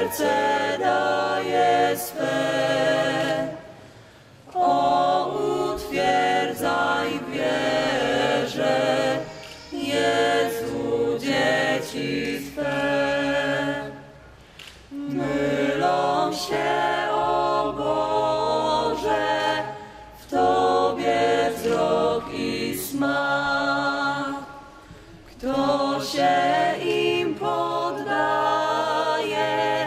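Small mixed vocal ensemble of men and women singing a cappella in harmony, in phrases separated by brief pauses.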